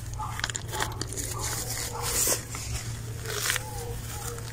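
Gloved hands pulling and tearing a mat of groundcover plants loose from a thin bed of sand: a run of crunching, ripping sounds as the fine roots give way, loudest about two seconds in and again past three seconds.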